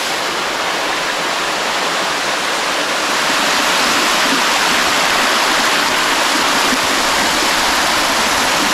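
Small mountain waterfall cascading over stepped rock slabs: a steady rush of falling water that grows a little louder about three seconds in.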